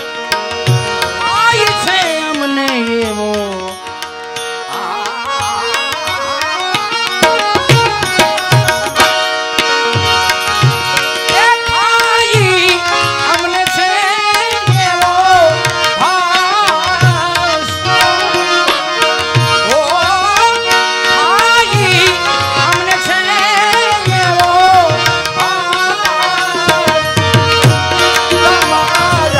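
Bhajan music played live: tabla keeping a steady rhythm of low drum strokes under a smoothly gliding melody and steady held notes.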